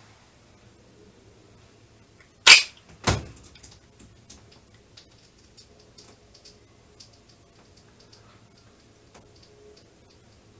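Two sharp knocks about half a second apart, the first the louder, followed by faint scattered clicks.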